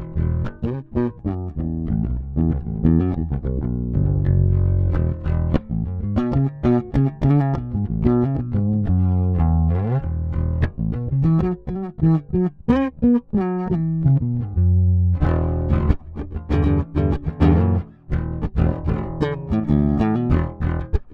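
Squier Precision Bass (20th Anniversary Edition) electric bass being played: a continuous line of plucked notes, with a couple of slides rising in pitch about halfway through.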